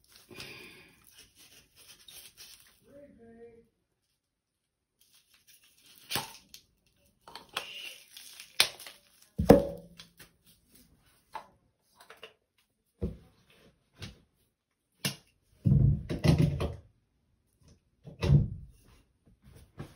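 Hands crinkling and tearing at a bath bomb's plastic wrapping, in scattered rustles and clicks, with a sharp thud about halfway through and several heavier thuds near the end.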